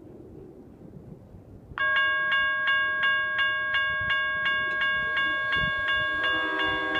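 Railroad grade-crossing bell starting to ring suddenly about two seconds in, struck about three times a second: the crossing has activated for an approaching train. A second, lower-pitched crossing bell joins near the end.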